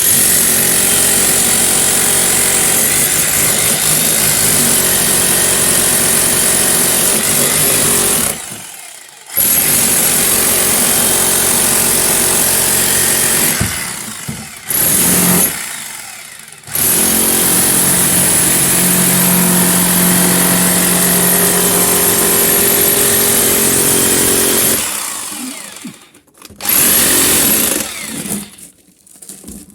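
Electric hammer drill running at full power, chiselling into a wall in several long runs with short pauses between them, and a brief final burst near the end.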